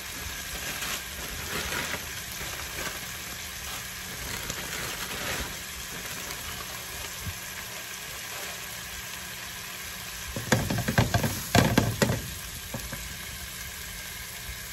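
Frozen diced onion and bell pepper frying in a square ceramic-coated nonstick pan, a steady sizzle. About ten seconds in, a utensil knocks and scrapes in the pan for about two seconds as the vegetables are stirred.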